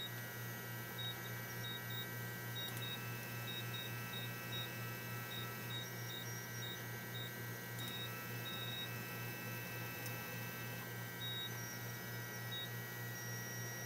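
Low steady electrical hum with faint steady high-pitched whine tones, from the homemade RepStrap 3D printer's powered stepper motors and electronics. Short, faint high beeps come and go throughout.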